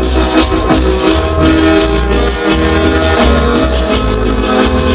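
Cumbia music played loud through a sound system, with a heavy, pulsing bass line.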